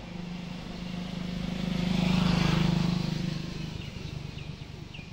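A motor vehicle's engine passing by, growing louder to a peak about two seconds in and then fading.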